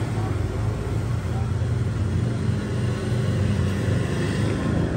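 A steady low mechanical rumble with a constant hum, unchanging throughout.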